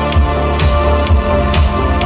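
Live synth band playing: an electronic drum beat ticking about four times a second over a pulsing bass line and held synthesizer chords.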